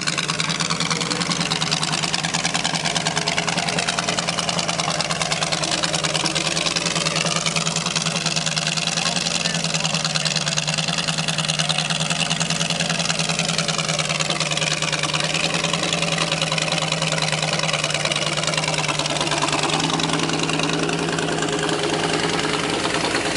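Chevrolet 350 small-block V8 mounted in a riding lawn mower, running steadily at idle through short exhaust headers. Its pitch rises slightly and settles back in the middle.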